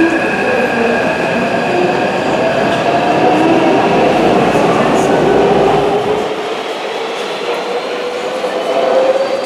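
Taipei Metro C371 high-capacity train pulling out of an underground station, its traction motors whining and rising in pitch as it gathers speed over steady running noise. The rumble falls away after about six seconds as the last cars leave the platform.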